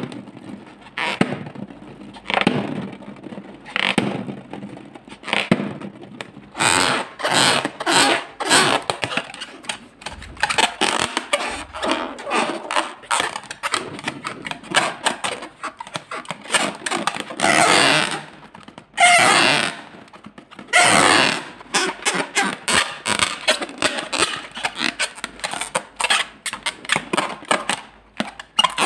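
Hands squeezing and kneading a latex balloon filled with slime, giving irregular squelching and rubbing sounds of the stretched rubber and its contents.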